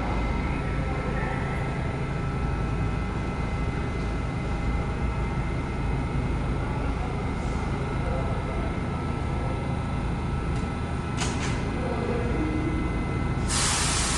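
R68-series subway train standing in the station with a steady low hum and rumble, with a few faint steady tones over it. A brief hiss of air comes about eleven seconds in, and a louder burst of air hiss near the end.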